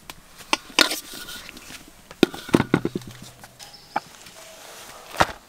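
A scattering of short, sharp knocks and clatters, as of objects being handled and set down, with a quick cluster of clicks about two and a half seconds in and a single knock near the end.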